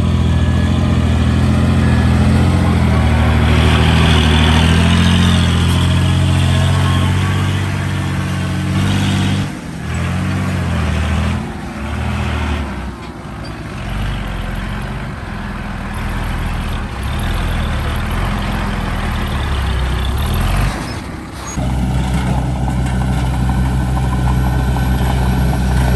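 Heavy diesel engines of a dump truck and a bulldozer running steadily under load. The engine sound cuts and changes abruptly several times.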